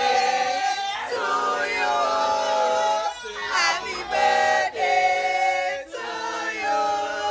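A group of people singing together in held phrases, with short breaks between lines.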